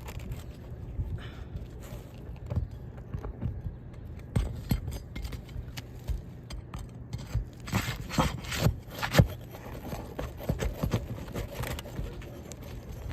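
Roofing shingle being pried loose: scattered scrapes, clicks and metallic jangling of a hand tool working against the shingle and its nails, with a cluster of louder knocks about eight to nine seconds in.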